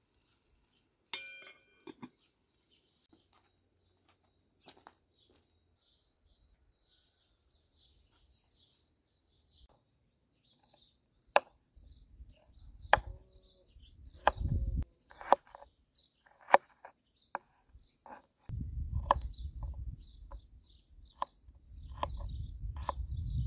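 Kitchen knife chopping carrots on a wooden cutting board: sharp knocks about once a second through the second half, partly over a low rumble. Small birds chirp throughout, and a single ringing clink comes about a second in.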